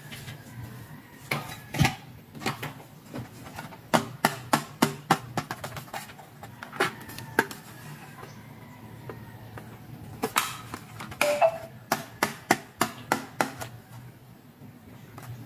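Hard plastic toy pieces, among them a toy eyeshadow palette's clear plastic case, clicking and tapping as they are handled, in irregular clusters of sharp clicks.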